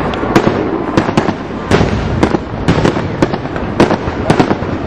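Aerial fireworks display going off: a rapid, irregular series of sharp bangs, one shell after another.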